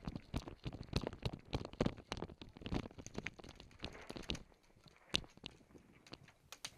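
Quick footsteps crunching on dry, gravelly dirt with gear rattling. They thin out to a few scattered clicks and knocks after about four and a half seconds.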